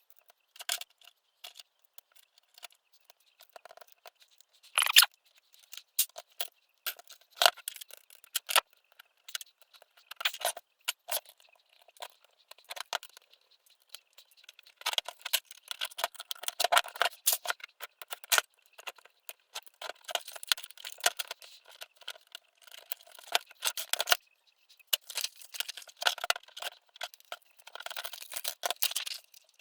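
Close hand-work noise: many small irregular clicks, taps and scrapes of plastic parts being handled, with one sharper knock about five seconds in.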